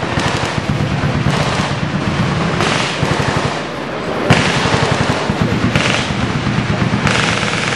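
Rapid gunfire from many guns at once, the shots overlapping into a continuous crackle with no pause.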